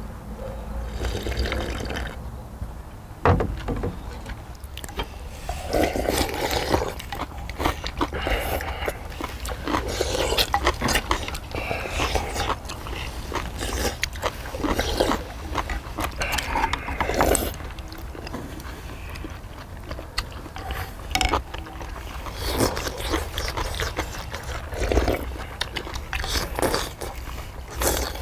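People eating beef short rib soup: slurping broth and noodles from earthenware bowls, with spoons and chopsticks scraping and clinking against the bowls in short, irregular bursts.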